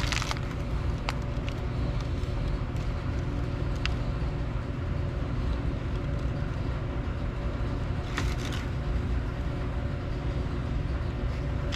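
Steady low mechanical hum with a few light clicks and a short clatter about eight seconds in.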